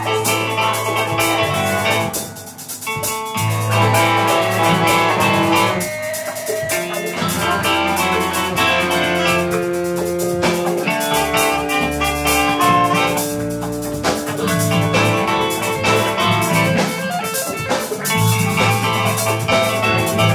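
Instrumental jam-band music: a drum kit keeps a busy, steady beat under a bass line whose held low notes change every second or two, with sustained melodic notes above.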